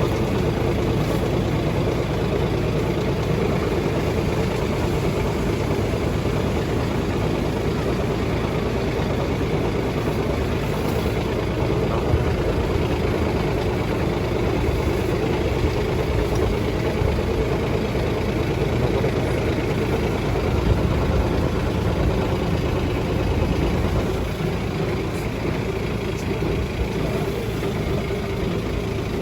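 High-pressure jetting truck running steadily, its engine driving the washing pump; the sound drops a little about four-fifths of the way through.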